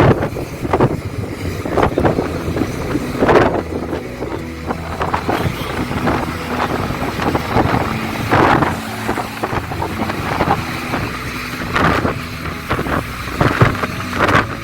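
Car driving at speed, with steady engine and road rumble and irregular gusts of wind buffeting the microphone.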